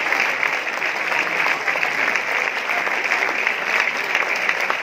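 Sustained applause from a large standing theatre audience of a couple of thousand people: dense, steady clapping filling the hall without a break.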